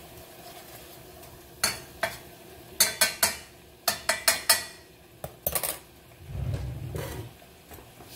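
A metal spoon clinking and scraping against the inside of a stainless steel saucepan while sauce is stirred, in a dozen or so sharp clinks in small clusters. Near the end comes a dull low rumble.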